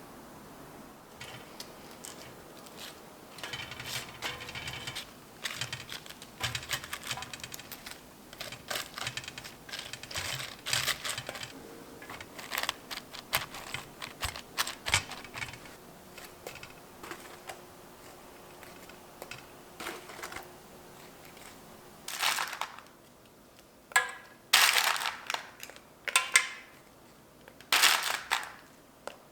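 Kitchenware being handled: a long run of light clicks, taps and rustles, then several louder, sharp clinks with a short ring in the last third, as a steamer and its lid are set down and fitted together.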